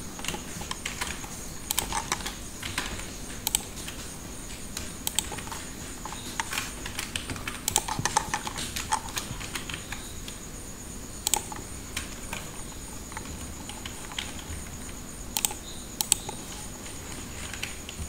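Irregular clicks and keystrokes from a computer keyboard and mouse, scattered unevenly, over a faint steady high-pitched whine.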